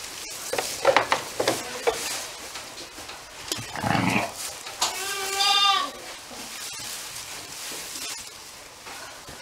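Sheep bleating: a short rough call about four seconds in, then a long wavering bleat a second later. A few sharp clicks and rustles in the straw come about a second in.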